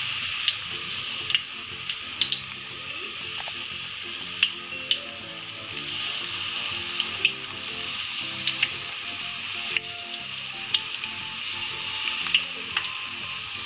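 Battered eggplant slices deep-frying in hot oil in a wok: a steady sizzle, with sharp pops of spattering oil every second or so.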